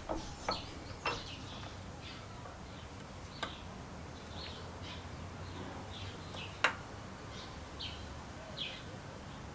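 A handful of sharp clicks and taps, the loudest about two-thirds of the way through, with birds chirping faintly in the background over a low steady hum.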